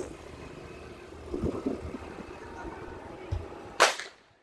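A single sharp firecracker crack near the end, the loudest sound here, over low street noise with faint voices.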